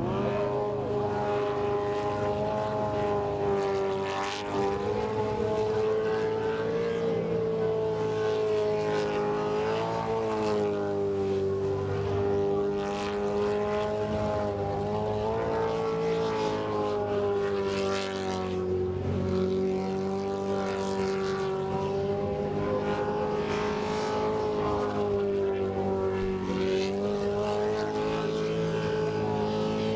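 Methanol-burning V8 engine of a jet sprint boat held at high revs through a lap, its pitch wavering a little as the boat works through the turns.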